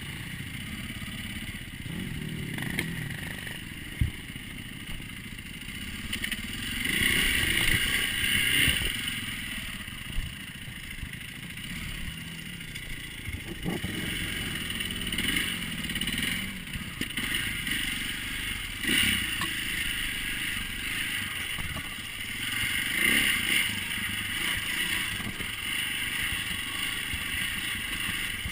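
Dirt bike engine running along a rough trail, its revs rising and falling with the throttle, loudest around eight seconds in. A few sharp knocks and rattles from the bike hitting rocks and bumps.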